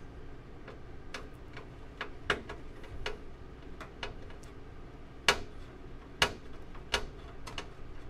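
Phillips screwdriver working a motherboard mounting screw loose: a series of irregular light clicks and ticks, with three sharper ones in the second half.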